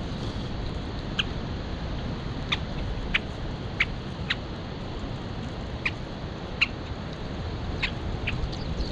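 Feral pigeons pecking at gravel close by: short, sharp taps at irregular intervals, about nine of them, over a steady low rumble.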